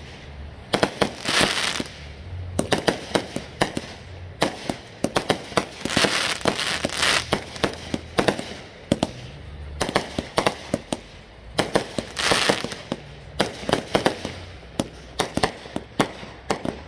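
Fireworks going off in quick succession: a steady run of sharp cracks and pops, with a longer hissing burst over a low boom about every five to six seconds.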